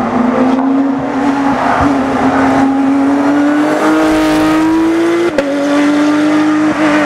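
Porsche 997 GT3 Cup's flat-six racing engine pulling hard under acceleration, its pitch climbing steadily. About five seconds in, an upshift drops the pitch sharply and it pulls on again.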